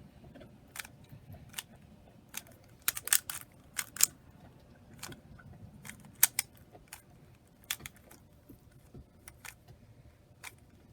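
Plastic speed cube being turned through a scramble by hand: irregular sharp clicks and clacks of the layers turning, sometimes in quick runs of two or three.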